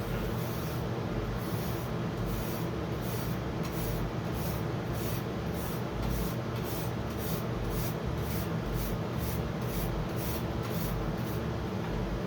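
Stick welding with a 7018 rod on straight polarity (DC electrode negative), the arc crackling and hissing over the steady hum of the Miller Econotwin HF welder. A high, regular pulsing about two to three times a second runs through most of it.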